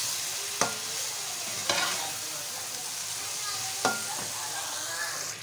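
Onion-tomato masala sizzling in oil in a metal karahi as it is fried and stirred with a slotted metal spatula. The spatula knocks sharply against the pan three times.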